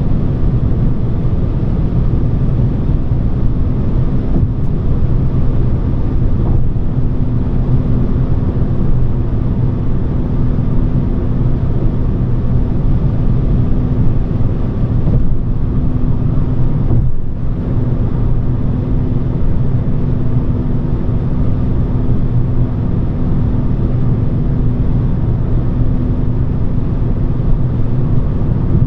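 Cabin noise of a Volvo S40 II cruising at a steady speed: road and tyre noise over the steady hum of its 2.4-litre five-cylinder petrol engine.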